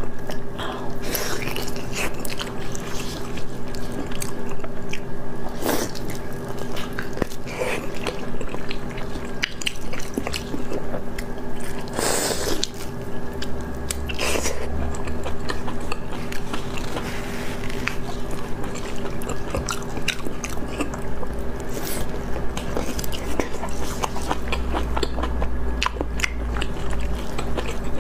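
Close-miked wet chewing and biting of sticky, sauce-coated braised meat, with moist smacks and squishes as it is torn by gloved hands and bitten. A steady low hum runs underneath.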